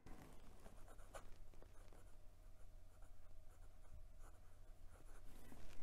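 A fountain pen's steel medium nib writing on Clairefontaine paper: a faint, continuous run of small scratching strokes as the letters are formed.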